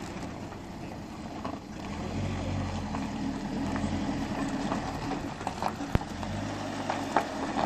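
Engine of a pigeon-transport truck running, a low steady hum that grows a little louder about two seconds in, with a few light clicks and a single knock near the end.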